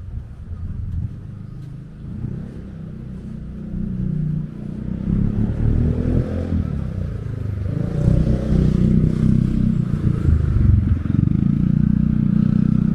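A motor vehicle's engine running close by on the street, with a pitch sweep around the middle as it passes. It grows louder over the second half.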